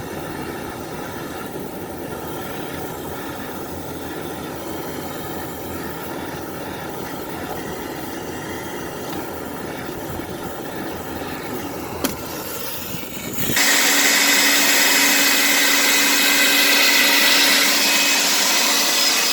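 Dryer vent cleaning equipment running steadily, air rushing through the lint-clogged vent line. About thirteen seconds in, a louder air machine starts abruptly, with strong rushing air and a steady whine.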